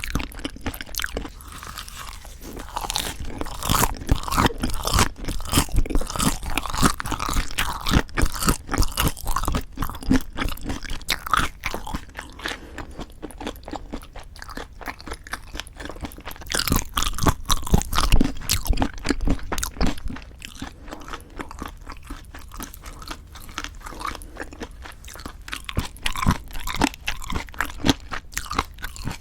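Close-miked chewing with crunchy, crackling bites of food. The chewing is busiest in two long stretches and quieter in between.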